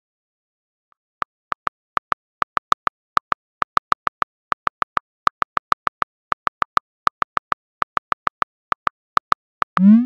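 Rapid key-tap clicks of a texting app's on-screen keyboard as a message is typed, about four short pitched ticks a second. Near the end a short rising swoosh as the message is sent.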